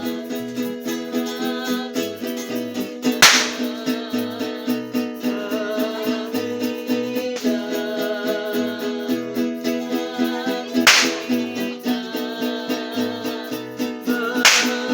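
A small live string band plays a song: guitars strummed in a steady rhythm under a melody line. Three loud, sharp cracks cut through the music, one a few seconds in, one past the middle and one near the end.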